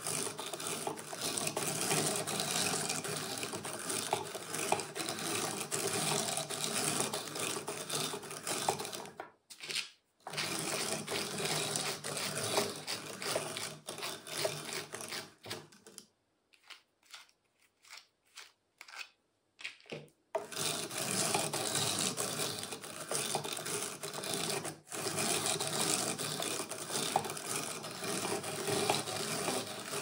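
Hand-cranked drum carder running: the wire-toothed drums turn and comb cotton fed in by hand, making a steady, dense rustling whir. It stops briefly about nine seconds in, then again for about four seconds from sixteen seconds in, where only a few faint clicks remain.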